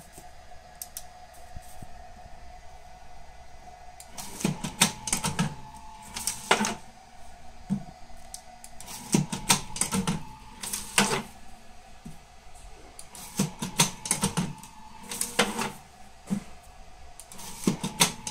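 Strapping machine running through repeated cycles: a steady hum, then from about four seconds in a group of rapid mechanical clacks with a motor whirr, repeating about every four to five seconds.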